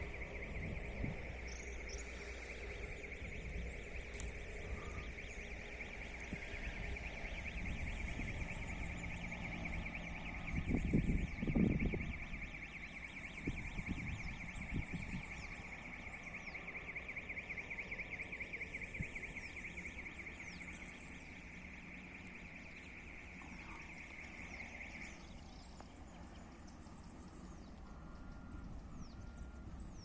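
Level-crossing warning alarm sounding a steady, rapidly pulsing high tone that cuts off abruptly about 25 seconds in, over the low rumble of passing rail traffic that swells loudest around 11 to 12 seconds in.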